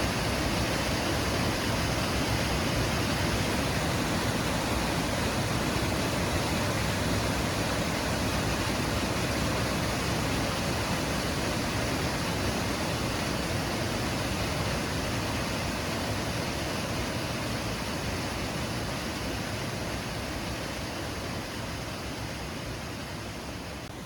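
Steady rushing of Jiktang Waterfall, the Hantan River pouring over a basalt ledge, fading out gradually over the last few seconds.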